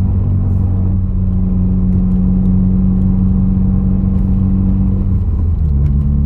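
2020 Subaru WRX's turbocharged flat-four engine running steadily while the car cruises, with a steady drone that drops in pitch about five and a half seconds in as the revs fall.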